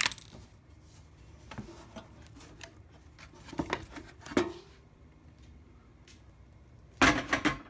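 Scattered light clicks and knocks of small hard objects being handled, ending in a short, loud rattling clatter near the end.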